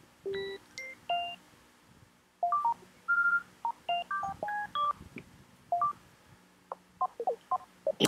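Short electronic user-interface sound effects from a software sound library: chimes and beeps, each at a different pitch, playing one after another with short gaps, about twenty in all. They are previews of completion, notification/alert and error sounds.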